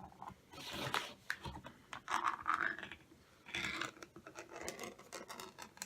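Plastic bag of tortilla chips crinkling and rustling as it is opened and handled, in several bursts with small clicks.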